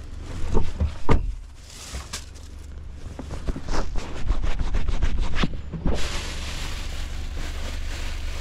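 A string of knocks, clicks and rustles from someone settling into a car seat and handling the phone camera, over a steady low hum. About six seconds in, a steady hiss starts suddenly.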